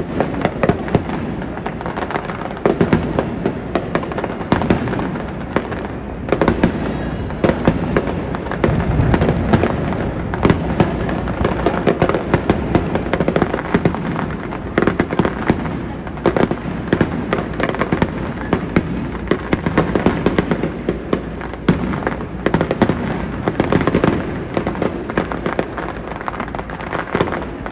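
Fireworks display: many aerial shells and reports going off in quick succession, several sharp cracks a second.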